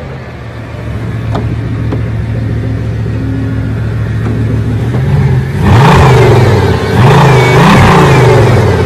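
Bugatti Veyron's 8.0-litre quad-turbo W16 engine idling steadily just after starting. About five and a half seconds in it is revved twice, each rev rising and falling in pitch.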